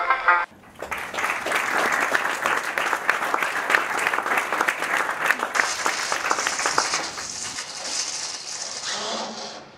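Large crowd applauding, starting about a second in and fading out near the end.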